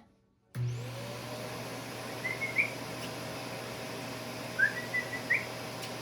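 An electric appliance motor of the vacuum-cleaner kind is switched on about half a second in and runs with a steady whir over a low hum. It is the noise stimulus for a puppy's sound-sensitivity test.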